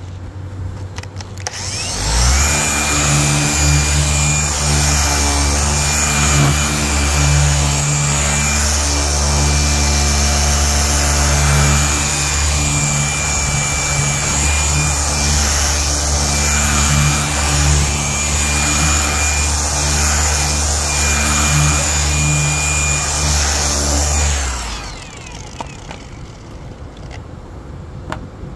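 Electric orbital polisher with a foam pad starting up about two seconds in and running steadily with a high whine as it polishes a car's headlight lens, then stopping near the end.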